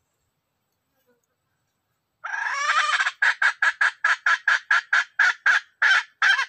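Red junglefowl calling: a harsh call begins about two seconds in, then breaks into a rapid series of about a dozen short clucking notes, three or four a second.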